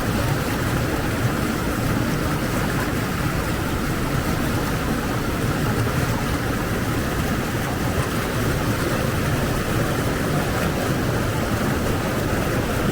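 Steady rushing water, an even unbroken roar with no gusts or breaks.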